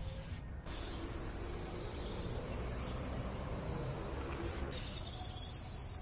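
Aerosol spray paint can hissing in long continuous sprays against a wall, with two short breaks, about half a second in and about five seconds in.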